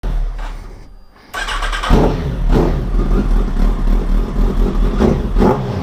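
Kawasaki ZX-10R's inline-four engine being blipped in repeated revs. It drops away about a second in, then picks straight back up into a string of sharp rises.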